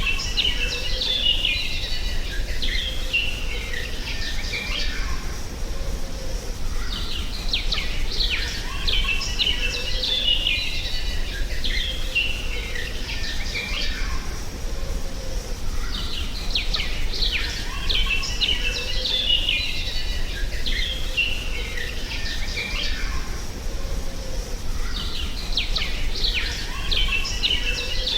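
Songbirds chirping and twittering in clusters of a few seconds. The same stretch of birdsong repeats about every nine to ten seconds, as in a looped nature-ambience track, over a steady low rumble.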